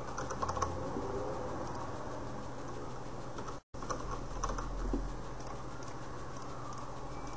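Computer keyboard typing in short bursts of key clicks, during the first second and again around four to five seconds in, over a steady low electrical hum. The sound cuts out completely for a moment just before four seconds.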